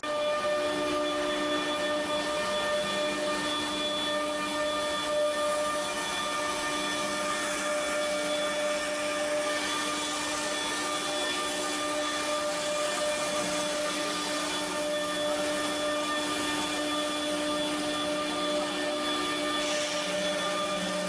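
Spindle of a foam-milling CNC router (9 kW ATC spindle) running with a steady high-pitched whine over a constant hiss.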